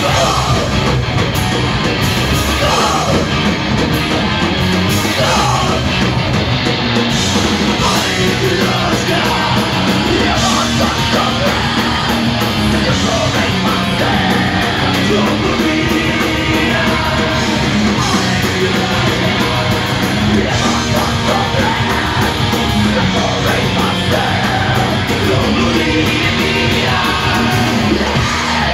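Punk band playing live, loud: distorted electric guitars, bass and drums, with a singer yelling into the microphone.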